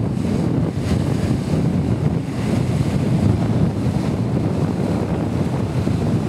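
Wind buffeting the microphone as a steady low rumble, over the splash of choppy water.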